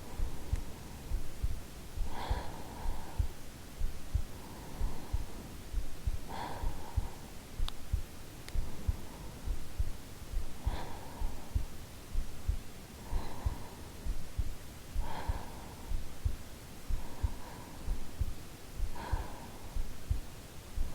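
A woman's real heartbeat, recorded close up: a steady run of soft, low thumps. Alongside it, a soft breathing-like rush returns about every two seconds.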